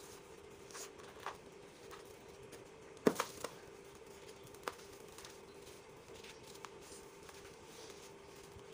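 Dry, gritty dirt clods crumbling in bare hands: soft scattered crackling and grit trickling, with a sharp crack about three seconds in as a clod breaks, a smaller one just after, and a click a little later.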